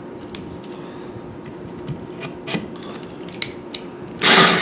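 A saw working through a wooden 2x4: faint scraping and small taps of the wood, then one loud rasping saw stroke near the end.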